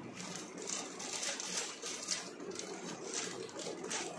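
Scissors snipping through a plastic mailer bag, with the plastic crinkling: short, quick cuts, about three a second.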